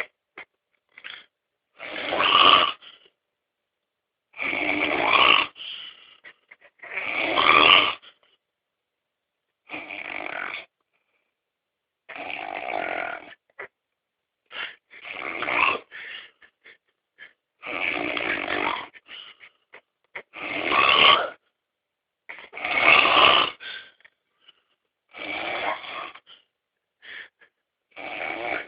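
Loud, heavy snoring: about eleven snores, roughly one every two and a half seconds, each lasting about a second with silence between.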